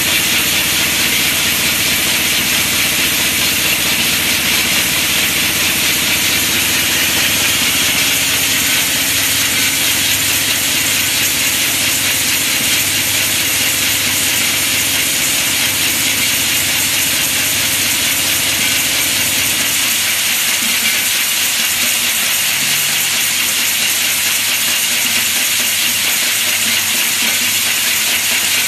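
Rotary bottle-cap slitting and folding machine running: a loud, steady hiss with a low mechanical hum beneath it. The hum drops away about two-thirds of the way through, leaving the hiss.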